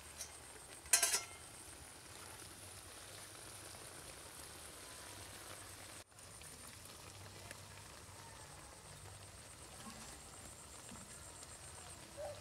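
Fish frying in a wok of hot oil, a steady hissing sizzle, with a short loud burst about a second in.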